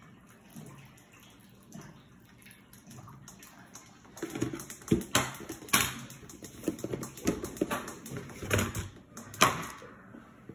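Water being poured and sloshed in a glass bowl, with several sharp knocks and clinks of glass from about four seconds in.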